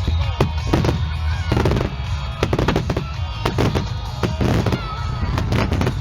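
Aerial fireworks bursting in quick succession, a string of sharp bangs about every half second, over background music.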